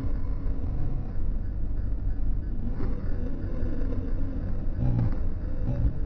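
Steady low rumble of city traffic with no single event standing out.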